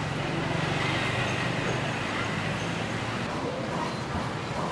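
Steady background noise of a busy market stall with a low hum running under it, and no distinct knife or cleaver strokes.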